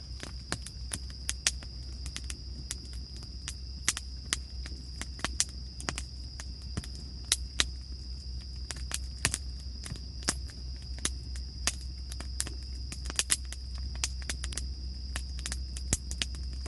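Steady high-pitched chirring of insects, with irregular sharp clicks and crackles a few times a second over a low rumble.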